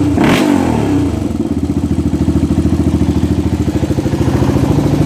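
Engine of a 1985 Honda ATC 350X, a single-cylinder four-stroke, running on its first start after being rebuilt. It blips briefly at the start, then settles into a steady, evenly pulsing idle, which the owner calls purring like a kitten.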